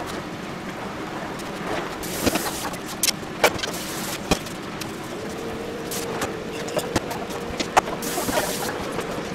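Kitchen work sounds: scattered knocks and clicks of utensils and the knife on the cutting board, with two short bursts of hiss. A faint steady hum sets in about halfway through.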